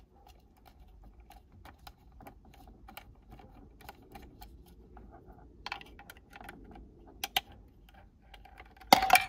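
Scattered light clicks and taps of a small Torx screwdriver and fingers against the plastic steering column cover, with a louder sharp knock near the end.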